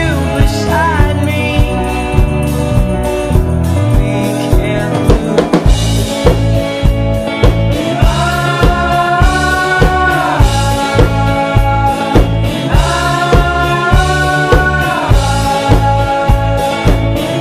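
Background pop song: a singing voice with long held notes over a steady drum beat.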